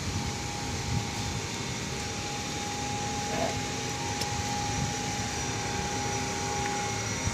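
Steady drone of thermal power plant machinery, an even rushing noise with a constant whine running through it.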